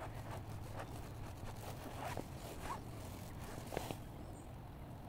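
A fingertip rubbing across wet tent fabric in a series of short strokes as letters are traced in the moisture, the loudest stroke nearly four seconds in.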